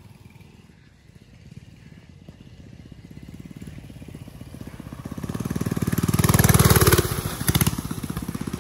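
Mini bike's small engine running, faint at first and growing steadily louder from about three seconds in to a loud peak about six to seven seconds in, then easing back sharply and running on at a steady, lower level.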